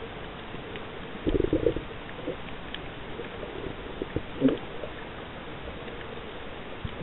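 Muffled underwater sound picked up by a camera in its waterproof housing: a steady hiss with two short gurgling bursts, about a second in and about four and a half seconds in, and scattered faint clicks.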